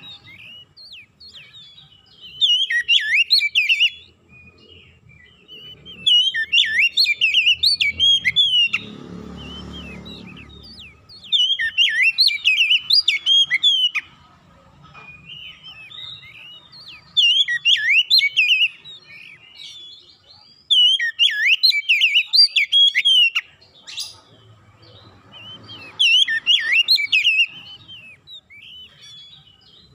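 Oriental magpie-robin (kacer) singing: six rich, fast phrases of quick sweeping whistled notes, each lasting about two seconds with pauses of a few seconds between them. A brief low rumbling noise comes in under it about a third of the way through.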